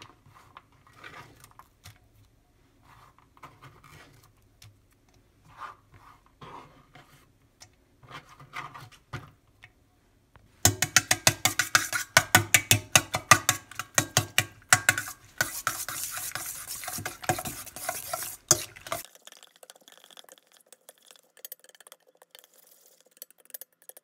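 A fork beating eggs and chopped cabbage in a stainless steel bowl: faint light taps at first, then from about ten seconds in a rapid run of metal clinks against the bowl for several seconds, fading to soft stirring near the end.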